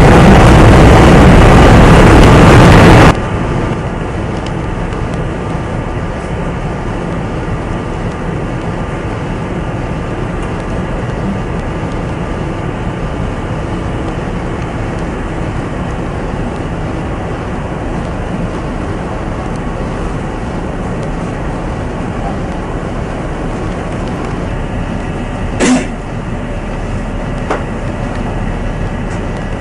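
A loud rushing noise that cuts off suddenly about three seconds in, then a steady ship's machinery hum with faint held tones. A single sharp click comes near the end.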